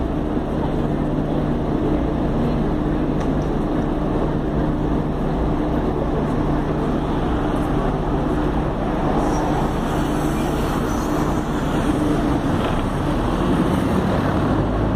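Bus engine idling with a steady low hum, heard from inside the passenger cabin.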